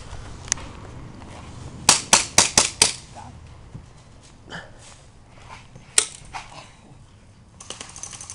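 Airsoft guns firing: a quick run of five sharp shots about two seconds in, roughly four a second, with single sharp cracks before and after.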